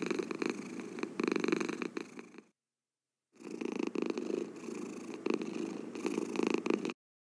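A cat purring, a fine rapid pulse that swells and fades in slow waves. It cuts out completely for under a second about two and a half seconds in, then resumes and stops abruptly near the end.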